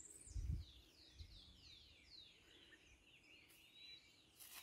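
Birds chirping: a run of quick, high, downward-sweeping notes, several a second, with a low thump about half a second in and a sharp click near the end.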